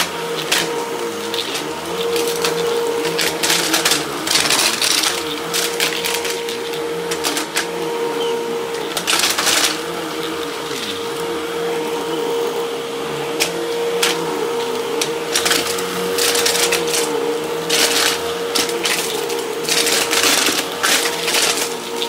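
Upright vacuum cleaner running on a carpet. Its motor holds a steady hum, and repeated loud bursts of hiss and rattle come as it sucks up scattered pellet debris.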